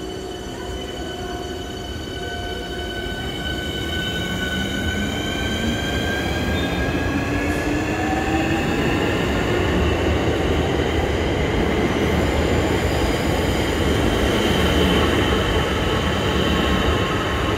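Southeastern electric multiple-unit train pulling away from the platform: its traction motors whine in several tones that climb steadily in pitch as it gathers speed, over a rumble from the wheels that grows louder.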